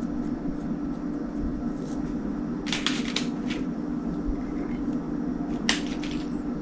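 Soft rustles and light taps of hands shaping sticky cookie dough on a parchment-lined baking tray: a cluster of them a little under halfway through and one sharper one near the end, over a steady low hum.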